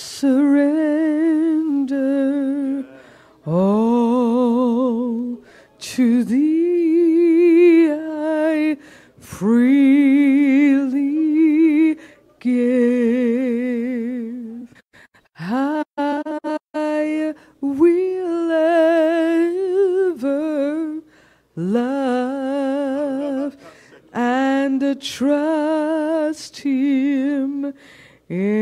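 A woman singing unaccompanied into a microphone: slow phrases of long held notes with a wide, even vibrato, broken by short pauses for breath.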